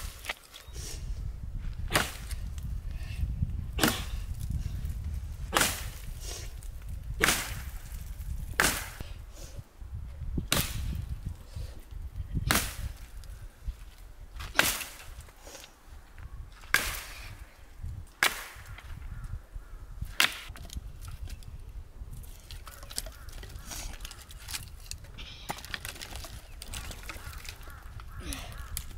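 Axe chopping branch wood: about a dozen hard strikes, roughly one every two seconds, that stop a little past two-thirds of the way through.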